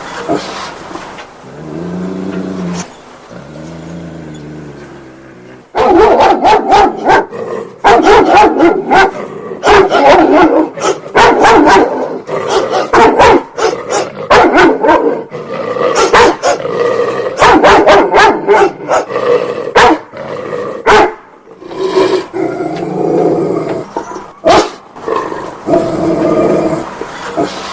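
A Dobermann growling low for the first few seconds, then barking in loud, rapid volleys, and going back to growling with a few barks near the end.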